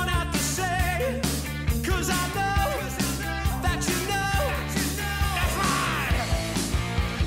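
A rock song with a singer over a steady drum beat.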